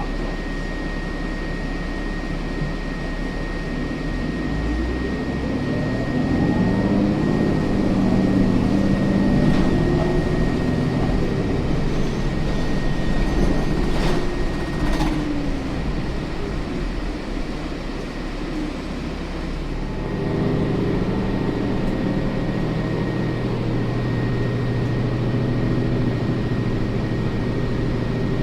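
Inside a city transit bus on the move: engine and drivetrain running over road noise, with a steady high whine. The pitch rises and falls as the bus speeds up and slows, and it settles into a steady hum about two-thirds of the way through. A couple of sharp knocks come around the middle.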